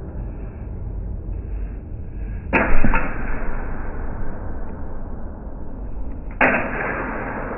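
Two sudden hits of steel fencing sabers, about four seconds apart, the first the louder, each drawn out into a long, low wash that fades slowly because the sound is slowed down. A low rumble runs underneath.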